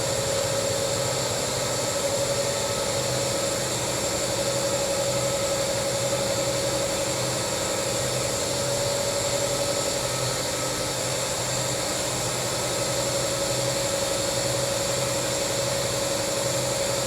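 Steady machine drone: a constant hum with a held tone and a hiss over it, unchanging throughout.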